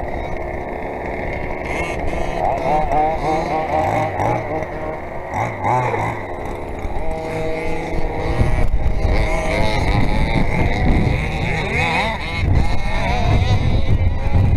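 Small two-stroke petrol engines of RC cars buzzing and revving up and down over and over, getting louder in the second half.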